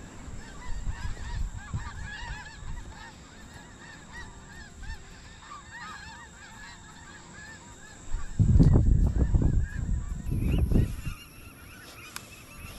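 A large flock of birds calling in the distance: many short, overlapping calls that thin out after about six seconds. From about eight seconds in, a loud low rumble on the microphone covers them.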